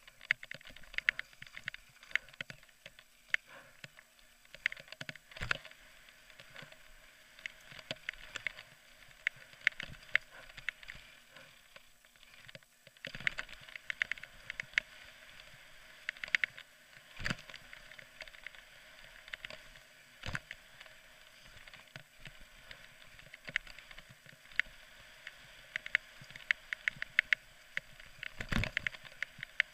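Downhill mountain bike clattering over a rough dirt trail: a constant rapid rattle of clicks and knocks from the bike's parts, with a few heavier thumps from bumps, the loudest near the end.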